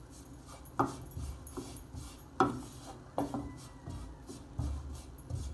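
Silicone spatula scraping and knocking against a nonstick frying pan while stirring garlic and flour frying in a little oil, with a few sharp knocks spread irregularly among the scraping.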